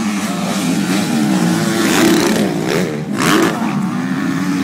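Motocross motorcycle engines revving hard as they race over a dirt track, their pitch rising and falling with throttle and gear changes. Several engines overlap, loudest about two seconds in and again just after three seconds.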